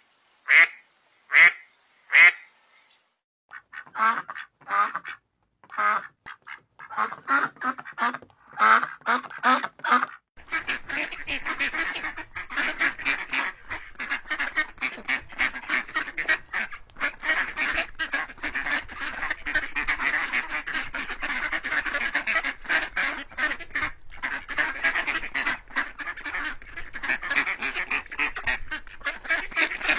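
Ducks quacking: loud separate quacks through the first ten seconds, then a steady din of many ducks quacking at once.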